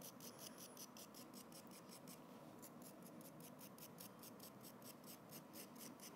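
Faint, even scratching of a tool drawn across soft clay, about six strokes a second: the edges of a clay slab being scored so the pieces can be joined.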